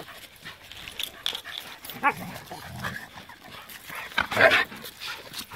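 Several dogs playing rough together in snow: scuffling, a short whine about two seconds in, and a louder outburst from one dog about four seconds in.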